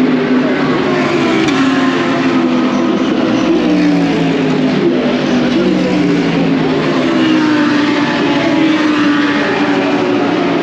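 Race car engines running loud and continuous on the track, several engines overlapping with their pitch drifting up and down as the cars rev and pass.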